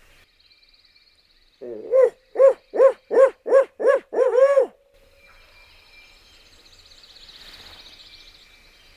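A loud series of about eight owl hoots in quick succession, roughly three a second, each rising and falling in pitch, the last one drawn out.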